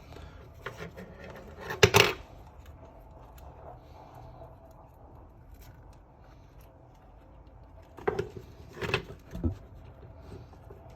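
Small hand tools and drone parts handled on a hard work surface during a propeller change: a sharp clatter about two seconds in, then quiet handling, then a few knocks and clicks near the end.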